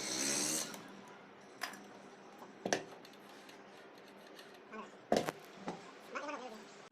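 Three sharp knocks spread over a few seconds, with faint background noise and short voice-like sounds at the start and near the end.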